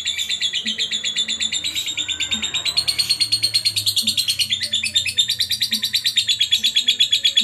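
Lovebird in full song ('gacor'), a long unbroken chatter of rapid high chirps that runs on without pause.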